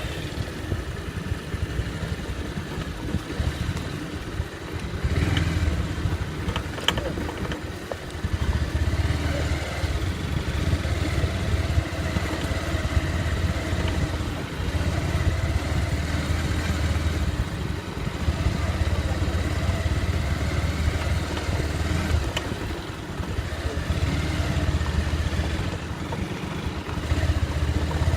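Motorcycle engine running under way, a steady low hum whose loudness swells and eases every few seconds as the throttle changes.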